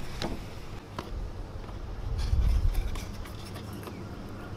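Small plastic clicks and rubbing as a fuse tap with its wire is pushed into a slot of a truck's under-hood fuse box, with a low rumble that swells about two seconds in.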